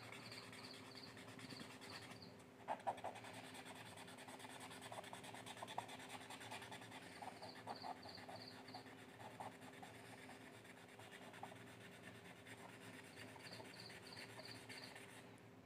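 Faint rubbing of a fingertip smudging charcoal shading on drawing paper, over a low steady hum. A quick high chirping repeats in short runs three times.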